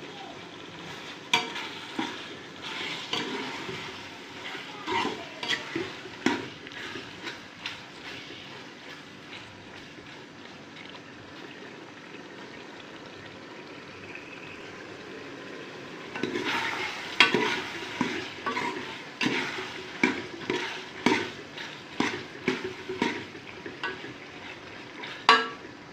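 Metal spoon scraping and knocking against a pressure-cooker pot while stirring chicken keema frying in oil, over a steady sizzle. The stirring stops for several seconds in the middle, leaving only the sizzle, then starts again.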